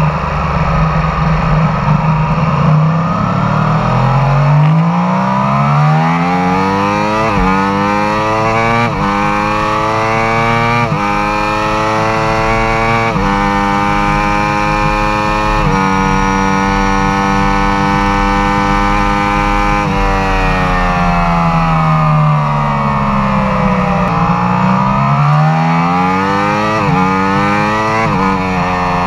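2015 Yamaha R1M's crossplane inline-four heard onboard at full acceleration, with wind rush. The engine note climbs through the revs and drops sharply at each upshift, four in a row, then holds steady at high speed for several seconds. It falls away as the bike slows, then climbs again through three quick upshifts near the end.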